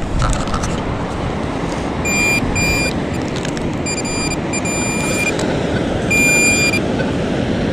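Metal detector sounding a steady high-pitched target tone five times, in short and longer beeps, while it is swept over a buried coin, a 5-cent piece.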